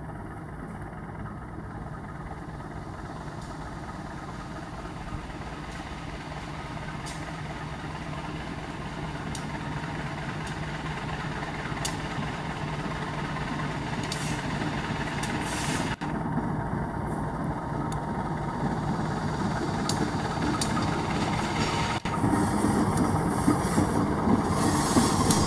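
CC203 diesel-electric locomotive hauling a passenger train, its engine running as it rolls slowly in toward a stop, growing steadily louder as it nears. Occasional light clicks from the wheels on the rails.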